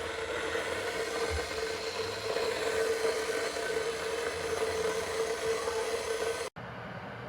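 Electric kettle heating water: a steady rushing hiss with a hum, which stops suddenly about six and a half seconds in.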